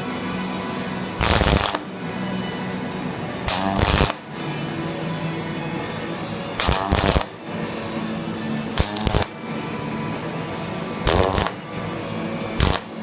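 Welder arc crackling in six short bursts of about half a second each, with pauses between: short stitch welds building up a steel reinforcement on a car's rear frame.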